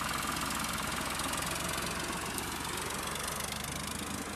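Farm tractor's diesel engine running steadily as it pulls a trailer past, its sound easing off slightly as it moves away.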